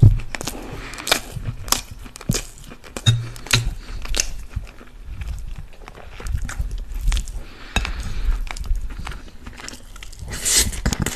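Close-miked eating sounds from chicken and rice: chewing, with many wet mouth clicks and smacks, and a spoon clinking against a glass plate. A louder cluster of mouth sounds comes about ten seconds in, as a spoonful goes into the mouth.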